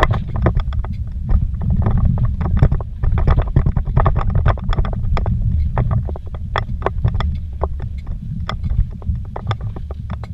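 A vehicle driving fast over a rocky dirt trail, heard from inside the cab: a steady low rumble from the tyres and body, with frequent sharp knocks and rattles as it jolts over rocks.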